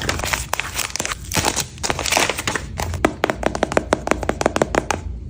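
Blind bag packaging crinkling and rustling as it is handled and torn open, with a quick run of small clicks and taps in the second half.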